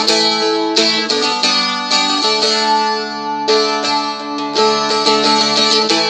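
Seagull Merlin stick dulcimer being strummed: repeated chord strums a few times a second over ringing strings, the chord changing every second or so.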